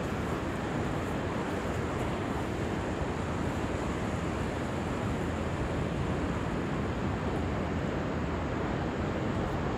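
Ocean surf breaking on a sandy beach, a steady rushing noise with no separate events, mixed with wind on the microphone.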